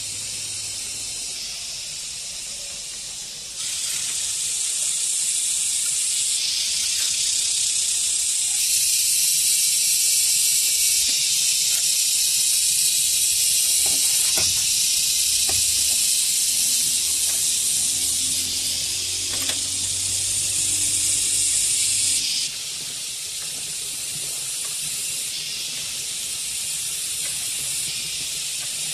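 Cicada chorus: a loud, steady high-pitched drone that gets louder twice early on and drops suddenly about two-thirds through. A few faint taps of bamboo slats sound under it midway.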